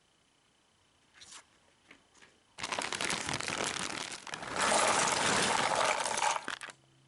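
Jigsaw puzzle packaging being handled: a few light taps, then about four seconds of dense rustling and crackling in two spells, the second louder.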